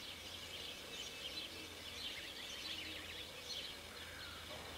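Faint birdsong: several small birds chirping and calling in short, scattered phrases, over a faint steady low hum.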